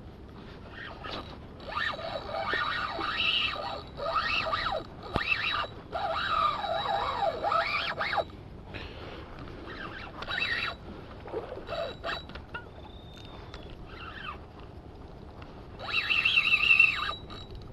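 Spinning reel whirring in repeated bursts, its pitch rising and falling, as line is wound in against a big hooked fish.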